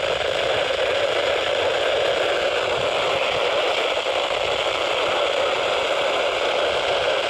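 Steady radio static hiss from a weather radio receiver on a weak broadcast signal, with no speech in it.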